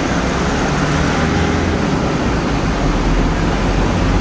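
Busy seafront ambience: a steady, loud, even rush of noise with a fluttering low rumble, with no single sound standing out.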